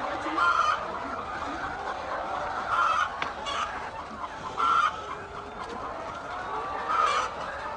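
A flock of hens clucking, many calls overlapping, with four louder short calls from a nearer bird.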